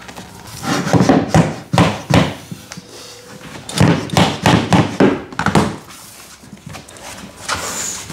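A tapping block knocked against a scrap of vinyl plank to drive the planks' click-lock joints together, in several bursts of quick knocks.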